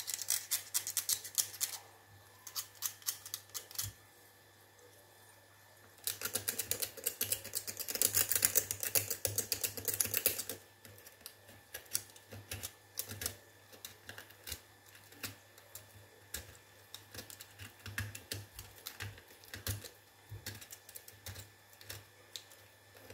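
Fast scratching and scraping strokes of a small hand tool scrubbing at a wireless microphone's corroded battery contacts. The strokes are loudest for the first couple of seconds and again from about six to ten seconds in, with lighter, sparser ticking and scratching in between.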